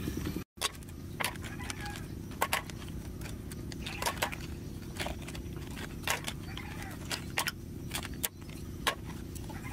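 Wild snail shells clicking against each other and against a clay pot as they are dropped into it by hand, a sharp click every second or so. A steady low rumble runs underneath.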